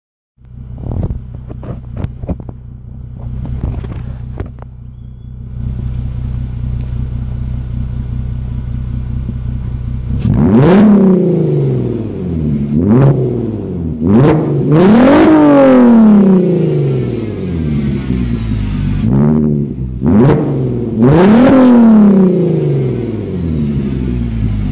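R32's engine through a Magnaflow exhaust, idling steadily, with a few clicks in the first few seconds. From about ten seconds in it is revved six times, each rev rising and falling back, two of them held briefly high, then it settles back to idle.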